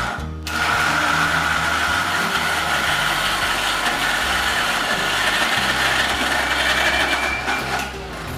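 Electric mixer grinder (mixie) grinding pressure-cooked minced meat and soaked chana dal into a paste. After a short pulse at the start, the motor runs steadily for about seven and a half seconds, then stops near the end.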